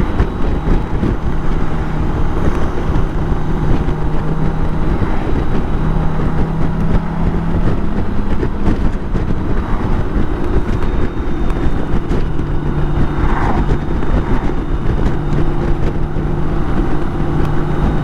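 BMW K1600 GTL's inline-six engine running while riding, a steady engine note whose pitch shifts a little about halfway through, under a constant rush of wind and road noise.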